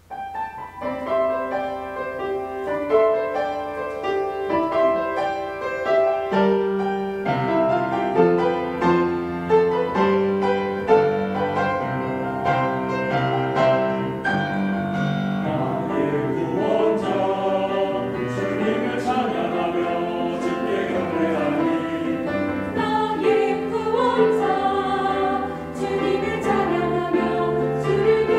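A church choir anthem with piano and string accompaniment (cellos and violin), a full mix of sustained sung and played notes starting at once from near silence.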